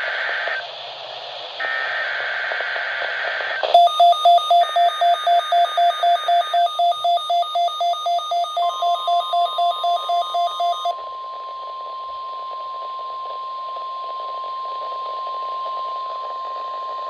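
NOAA Weather Radio weekly test tones heard through a weather radio. Warbling SAME digital header bursts play first. About four seconds in, a loud beeping starts at about three beeps a second, the receiver's alert set off by the header. A few seconds later the steady 1050 Hz warning alarm tone begins and holds on.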